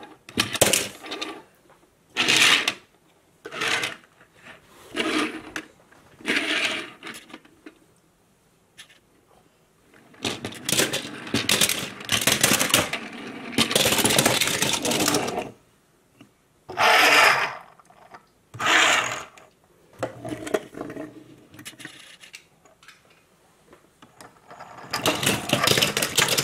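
Toy cars and trucks rolling on a tabletop and dropped into a plastic bin of other toy cars, clattering in short bursts of about a second, with a longer stretch of rattling about halfway through.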